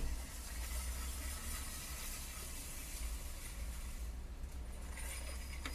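Steady low rumble and even hiss of a car's cabin, with a couple of faint clicks near the end.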